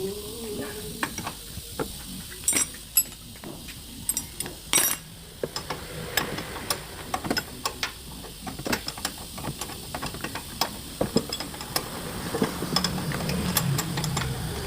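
Metal hand tools clinking and knocking against metal car parts during repair work: irregular sharp clicks and taps, a few louder knocks, and ratchet-like clicking.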